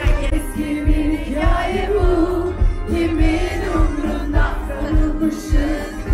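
Live pop music over a concert sound system, heard from among the audience: a sung melody over a steady kick-drum beat of about two thumps a second.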